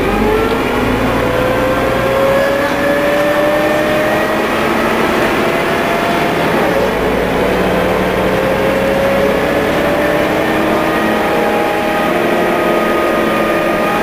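MCW Metrobus double-decker's engine and transmission pulling hard, heard from inside the passenger saloon: a whine that rises in pitch for about six seconds, drops at a gear change about seven seconds in, then rises again.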